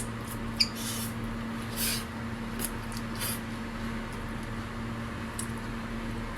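A steady low hum with a few short clicks and light scrapes scattered through it, the sharpest click about half a second in.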